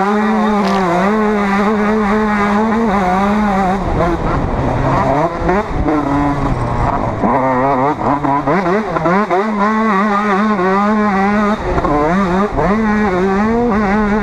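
Motocross bike's single-cylinder engine at racing speed: held at high revs, then dropping and climbing repeatedly about four to eight seconds in, and back to steady high revs near the end.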